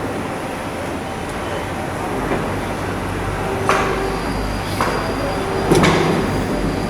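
Steady shipyard background noise with a low hum, broken by three sharp knocks in the second half, and a thin high tone that starts partway through.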